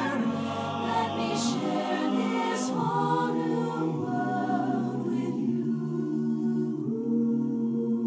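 Music of sung voices holding long, slow chords, which turn softer and darker about halfway through.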